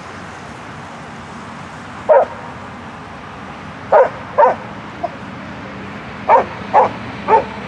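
A dog barking in short single barks, about six in all. There is one bark, then a pair about four seconds in, then three in quick succession near the end.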